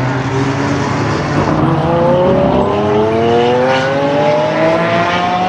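Lamborghini Aventador SV's V12 engine running hard, then accelerating, its note climbing steadily in pitch from a little under two seconds in.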